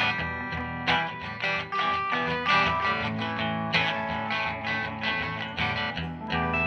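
Guitar music, strummed chords in a steady rhythm, from an amateur jam session recording.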